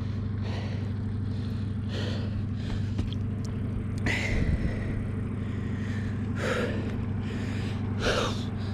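Steady low drone of a ship's diesel engine running, with a few short splashes of river water.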